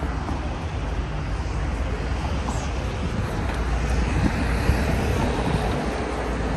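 City street traffic: a steady low rumble of passing vehicles.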